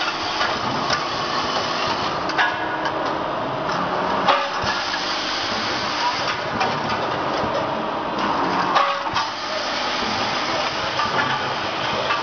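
Vibratory bowl feeders and their packaging machine running: a steady mechanical buzz with parts rattling and a few sharp clicks and knocks.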